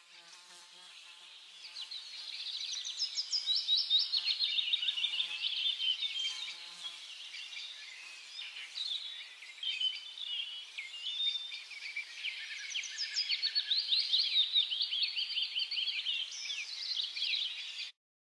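Woodland songbird chorus: many birds singing at once, dense rapid high chirps and trills overlapping. It fades up over the first couple of seconds and cuts off abruptly near the end.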